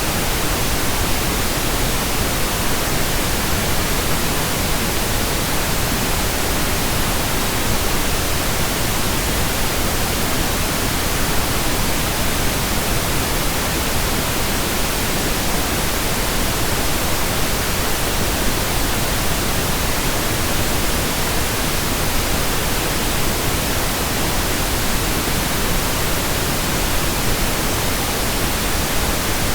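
Pink noise: a steady, unchanging hiss spread evenly from deep to high.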